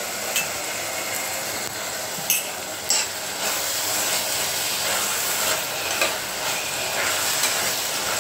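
Vegetables sizzling in oil and coconut milk in an open stainless-steel pressure cooker, half-cooked, stirred with a steel slotted ladle that scrapes and clinks against the pot several times over a steady sizzle.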